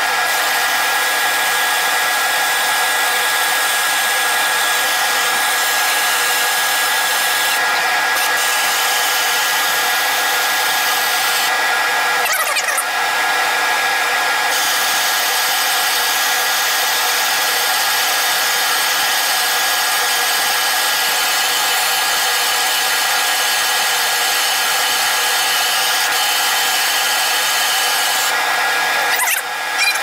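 Wood lathe spinning a laminated oak tool handle while a turning tool works the wood, played back at four times speed: a steady hiss with an even, high whine.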